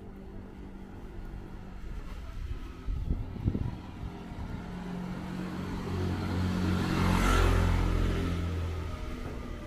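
A motor vehicle approaching and passing close by, its engine hum and road hiss building to loudest about seven seconds in and then fading away. A few short knocks sound about three seconds in.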